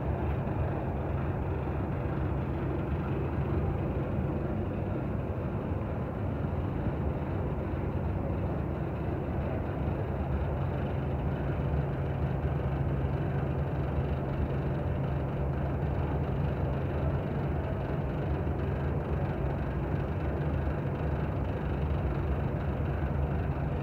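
A steady, unbroken low drone of a running machine or motor, with a constant deep hum.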